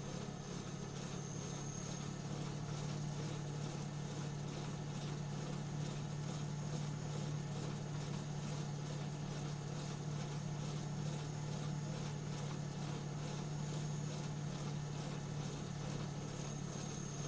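Homemade pottery wheel driven by an upcycled car alternator, running steadily with a low even hum. A faint high whine comes and goes near the start and again near the end.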